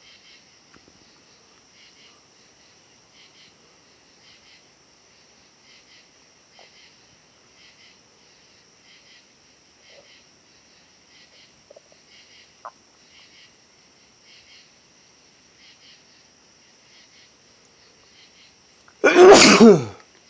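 A single loud, uncovered human sneeze near the end, lasting about a second and dropping in pitch as it ends. Before it there is only faint, regular chirping in the background.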